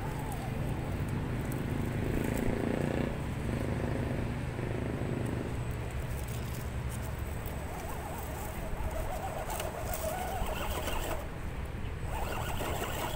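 Small RC rock crawler with an Axial 27T brushed electric motor and gear drivetrain running at low speed as it creeps up rock, with birds calling in the background, mostly in the second half.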